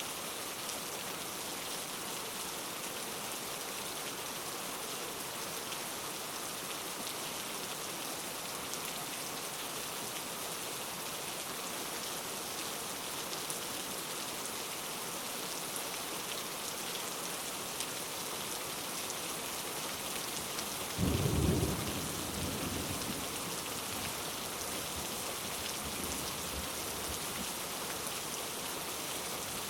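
Steady rain falling, with a single thunderclap about two-thirds of the way through whose low rumble dies away over a few seconds.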